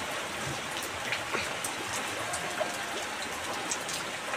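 Steady rain falling, a constant hiss dotted with scattered sharp drops striking nearby surfaces.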